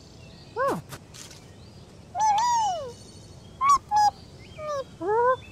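Cartoon bird characters chirping: about six short pitched chirps and squawks, some gliding down or up, with one longer rising-and-falling call in the middle. Fainter high chirps sound behind them.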